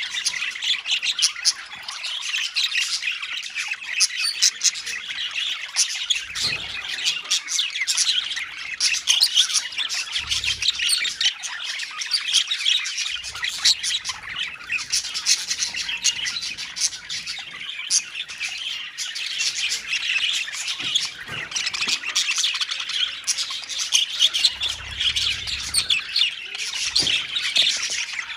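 A colony of budgerigars chirping, many birds calling at once in rapid, overlapping chirps with no pause.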